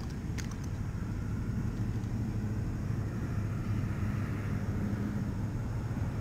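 A steady low engine drone, with a couple of faint clicks about half a second in.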